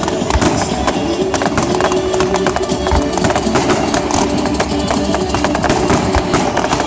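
Pop music playing loudly, in a stretch without vocals, with fireworks crackling and popping all through it and a few deep thumps.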